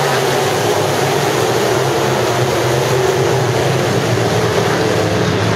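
A pack of sport mod dirt-track race cars racing past, their engines blending into a loud, steady drone with several pitches wavering as the cars move around the track.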